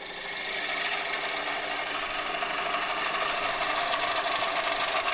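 Freshly sharpened bowl gouge cutting the inside of a wooden bowl spinning on a wood lathe: a steady hissing cut over the lathe's hum, with a few quick knocks near the end.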